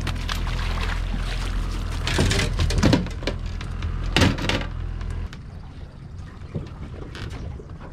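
Water pouring and splashing off a landing net as a chinook salmon is hauled out of the sea and onto a boat's deck, with a few loud knocks and splashes about two, three and four seconds in. A low boat-motor hum runs underneath and drops away about five seconds in.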